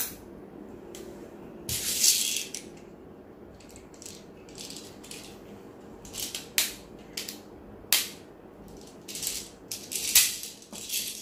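6 mm airsoft BBs being loaded from a BB speedloader into the GHK AKMS gas blowback rifle's magazine: irregular short rattles and clicks, the longest burst about two seconds in and a cluster of them near the end.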